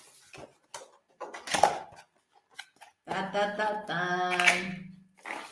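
A cardboard product box being handled and opened, with short clicks, taps and scrapes of the cardboard. About three seconds in, a woman's voice sings two held notes, one after the other.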